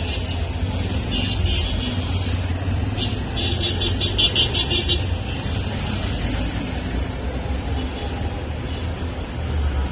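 Busy street traffic: a steady low rumble of passing vehicles, with a rapid run of high-pitched repeated pulses briefly about a second in and again from about three to five seconds in.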